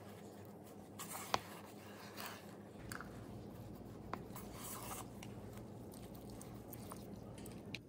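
A silicone spatula and a wooden spoon scrape and stir thick batter against the sides of a bread machine pan, with irregular rubbing and light clicks. There is one sharp knock about a second and a half in.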